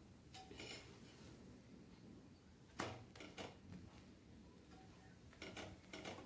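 Faint taps and scrapes of a slotted metal spatula on a flat tawa as a layered paratha is pressed and turned, with a sharper knock about three seconds in and a few light scrapes near the end.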